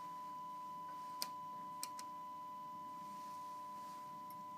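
Steady, high, pure sine test tone from the amplifier test setup, with faint extra overtones. Two sharp clicks come about a second and two seconds in.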